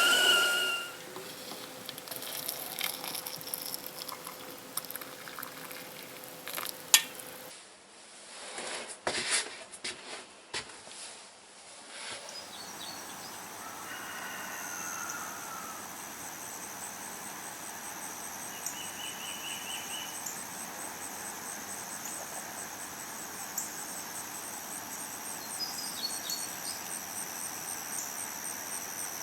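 Insects trilling steadily in a high, pulsing band, with a few short bird chirps. The first dozen seconds hold scattered clicks and knocks instead.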